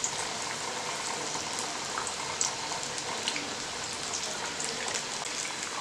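Mutton vadas deep-frying in hot oil in a steel kadai: a steady sizzle and bubbling, with a few small crackles.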